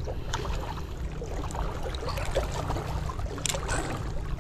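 Handling noise from a fish being freed in a mesh landing net: scattered light rustles and taps over a steady low rumble, with one sharper click about three and a half seconds in.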